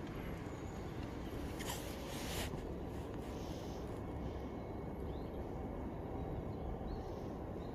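Quiet outdoor ambience: a steady low rumble, with a brief hiss about two seconds in and a few faint high chirps.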